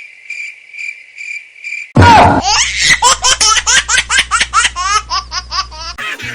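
Cricket chirping, pulsing about four times a second. About two seconds in it gives way to loud, high-pitched child's laughter in repeated giggles, about three a second.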